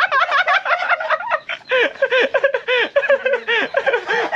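A flock of poultry calling over one another at feeding time: many quick, rising-and-falling calls packed close together, loud and without a break.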